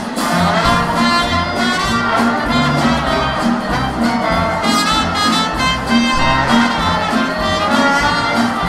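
Small swing-style jazz band playing. Trumpet and trombone lead over upright bass and drums, with a regular low beat underneath.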